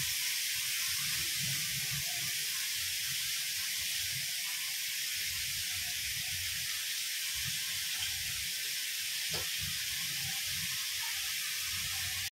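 Grated carrots sizzling steadily in hot ghee in a kadhai as they start to roast, with soft handling noises as hands push the last shreds off a steel plate into the pan.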